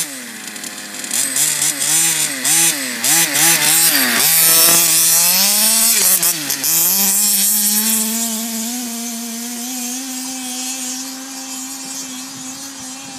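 A large-scale petrol RC car's two-stroke engine revving up and down in quick swings, about twice a second, then dropping briefly. From about seven seconds in it holds a steady high pitch and slowly fades as the car drives away.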